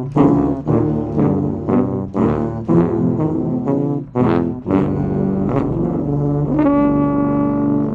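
Brass ensemble playing a tune in chords with short, detached notes, ending on a long held chord that cuts off at the end.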